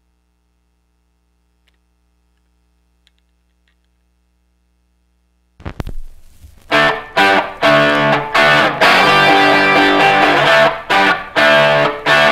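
Near silence, then about halfway through a distorted electric guitar kicks in with a loud, chopped riff that stops and starts in short breaks: the opening of a rock song.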